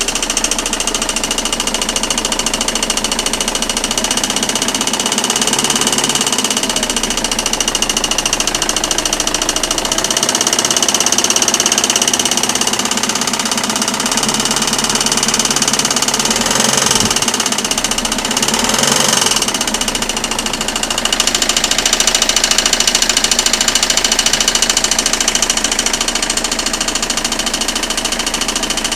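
Citroën Xsara 2.0 HDi four-cylinder turbodiesel running with a fast, even clacking from the timing-belt side that varies with engine speed. It is louder from about three-quarters of the way through. The clacking is the sign of a failed crankshaft damper pulley.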